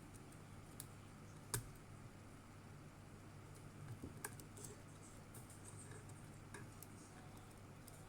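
Faint, scattered clicks and taps of small plastic robot parts being handled and fitted together, the sharpest about a second and a half in, over a low steady hum.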